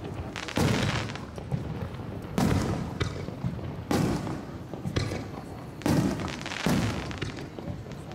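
Aerial firework shells bursting: five loud booms a second or two apart, each fading out over about a second.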